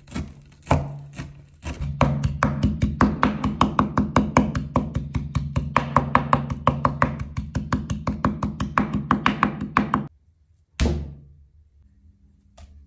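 Chef's knife chopping parsley on a bamboo cutting board, the blade knocking the wood. It starts with a few slower chops, then runs fast at about six a second until it stops abruptly. A single knock follows.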